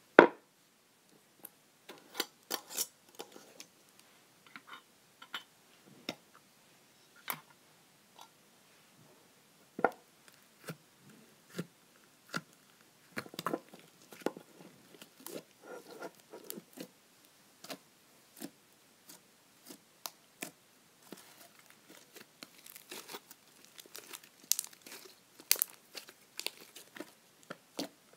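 Butter slime being squished, poked and stretched, making irregular sticky clicks and small pops, sparse at first and coming more thickly in the second half.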